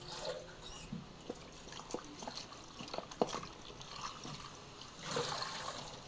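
Wet pieces of raw ostrich meat being picked from a plastic tub and dropped one by one into a pot of water: small splashes and drips, with a few short knocks in between. The noisier splashing comes at the start and again near the end.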